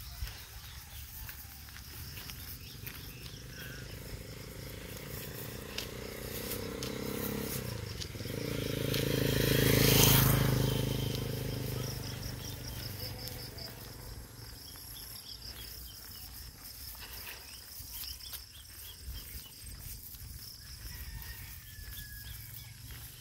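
A motorcycle approaches and passes close by, its engine growing louder to a peak about ten seconds in and then fading away. Insects chirp steadily in the background.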